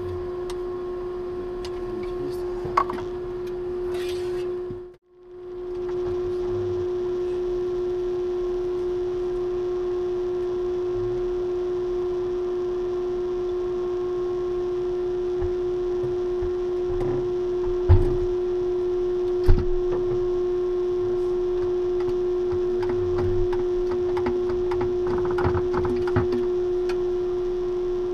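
Steady hum of the space station's fans and equipment, one constant tone with fainter tones above it, with a few light handling rustles and two sharp knocks against metal at the hatch about two-thirds of the way through. The sound cuts out completely for a moment about five seconds in.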